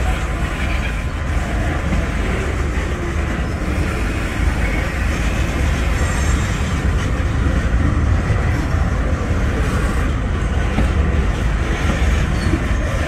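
Freight train of tank cars rolling slowly past at close range: steel wheels on the rails make a steady low rumble.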